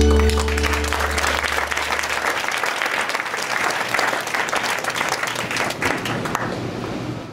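Audience applauding, while the held chords of the backing music fade out over the first two seconds or so. The clapping goes on and cuts off suddenly near the end.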